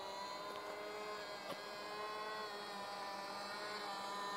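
Distant RC model airplane motor droning steadily high overhead, its pitch wavering slightly as the plane flies, with a faint click about a second and a half in.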